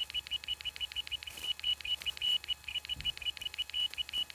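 An iPod's small hard drive ticking rapidly and chirping with a high-pitched beep between the ticks, at about seven or eight ticks a second. These are bad-sector noises, the sign of a failing drive.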